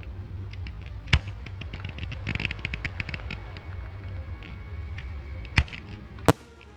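Fireworks going off: a sharp bang about a second in, a quick run of crackling around two and a half seconds in, and two more bangs close together near the end, over a steady low rumble that stops with the last bang.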